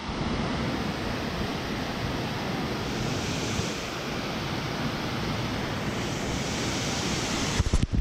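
Large waterfall pouring into a rocky pool: a steady, even rush of falling water.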